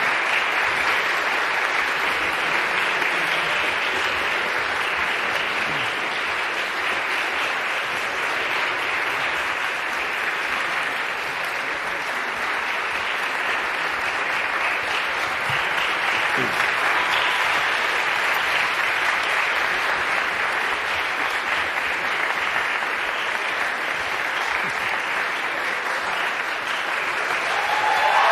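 An audience applauding steadily, an even clapping that keeps on without a break.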